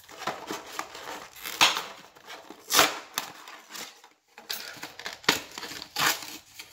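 A toy's blister pack being torn open by hand: the cardboard backing card ripping and peeling away from the plastic blister, with crinkling of the plastic. The rips come irregularly, the sharpest about three seconds in, with a short pause just after.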